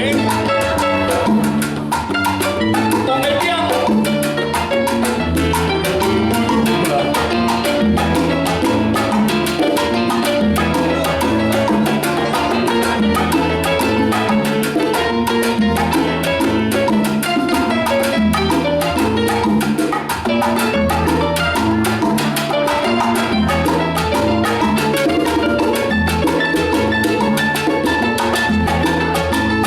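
A salsa band playing live: a repeating bass line under dense, steady Latin percussion with a driving dance beat.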